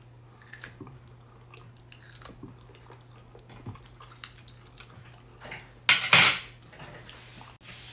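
Metal fork and knife clicking and scraping against a glass cutting board, with two louder clatters about six seconds in. A low steady hum sits underneath.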